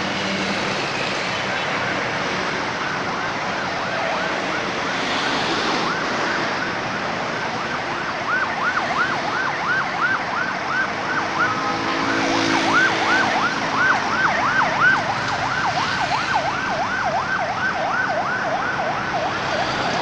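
An emergency vehicle's siren in a fast yelp, its pitch rising and falling about three times a second, over steady road traffic noise. It is loudest around the middle.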